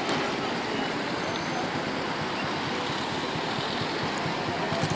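Steady outdoor background hiss with no clear single source, broken by a few faint clicks.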